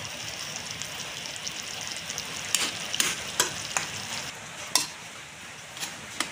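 Squid simmering in coconut milk in a wok, with a steady sizzle, while a spatula stirs it, clicking and scraping against the pan about six times in the second half.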